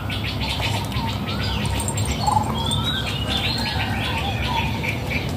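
Small birds chirping and twittering, many short rising calls overlapping, over a steady low hum.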